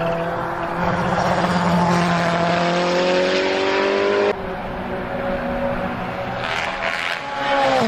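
Sports car engine sound effect: the engine revs up slowly, is cut off abruptly about four seconds in for a second rising rev, and drops sharply in pitch near the end like a car passing by.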